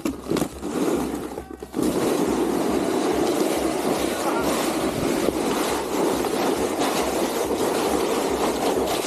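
A sled sliding over thick ice, its iced-over bottom scraping and rumbling steadily from about two seconds in, after a few short scuffs at the start.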